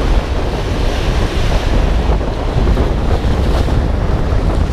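Strong wind buffeting the microphone, a steady low rumble, over surf breaking and washing against the rocks.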